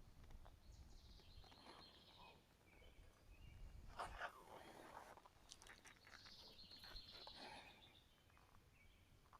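Near silence: faint outdoor ambience with a few faint bird calls.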